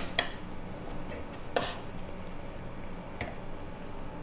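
Knife cutting and separating raw lamb liver on a baking tray, with a few sharp clicks as the blade or the meat knocks the tray, the loudest about a second and a half in. A low steady hum runs underneath.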